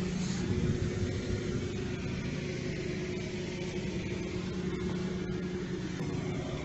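An engine running steadily: a low drone that holds one pitch throughout, over a rough background hiss.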